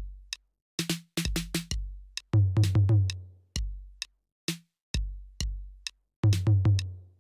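A looping trap beat from a TR-808 drum machine plugin: deep booming 808 kicks with long tails, short ticking hi-hats, and twice a quick run of four punchy drum hits. The two-bar pattern repeats about every four seconds.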